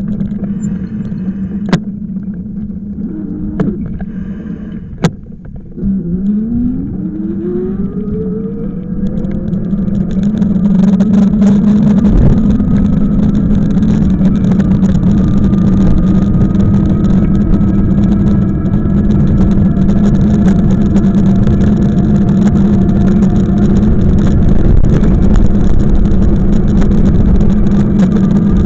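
A road vehicle pulling away: a few sharp clicks, then a rising note as it speeds up, and from about ten seconds in it runs steadily and louder, with road and wind noise.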